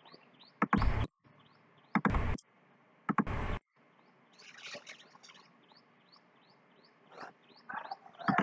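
Short high chirps repeating steadily at about three a second, each rising slightly in pitch. They are broken by three short loud bursts of noise in the first half.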